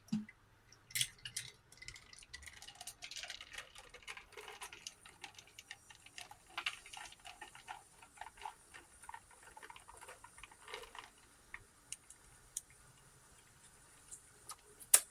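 Ice cubes clicking and crackling in a glass of cola and sake, with a light fizzing hiss, and a few sharper knocks of the glass being handled. The crackle is densest in the middle and thins out near the end.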